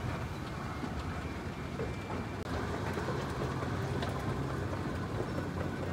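Escalator running: a steady low mechanical rumble and hum from the moving steps.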